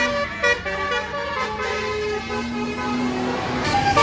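Bus 'telolet' multi-tone air horn (Basuri type) playing a tune in short stepped notes over a lower held tone.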